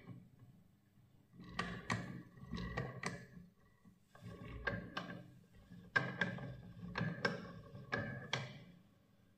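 A run of light knocks and clicks, about fifteen in three clusters, each with a brief ring, like small objects being handled or set down on a hard surface.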